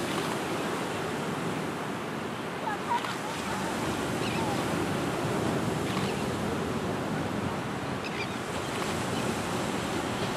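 Ocean surf washing steadily onto the beach, a constant rushing wash of small waves. A few faint, short high chirps, likely distant seabirds, come through about three seconds in and again near the end.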